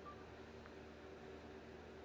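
Near silence: faint steady room hum, with a very short faint beep right at the start and a faint click about two-thirds of a second in.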